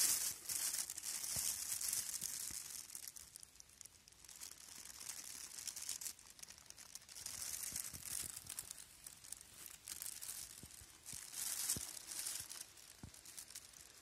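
Dry leaf litter rustling and crinkling in several bursts, with a few faint snaps in between.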